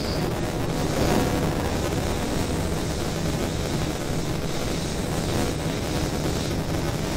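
Steady running noise of a moving NS SGMm Sprinter electric multiple unit, heard from inside the carriage.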